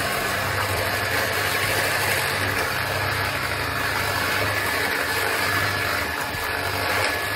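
Electric hand mixer running steadily, its twin metal beaters whisking a thick mango and milk mixture in a steel bowl.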